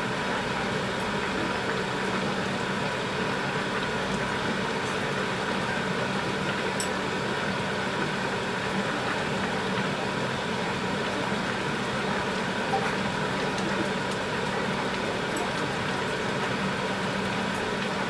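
Steady hum and hiss of the stove running under a pot of tteokbokki left to simmer, with a few faint ticks from the bubbling sauce.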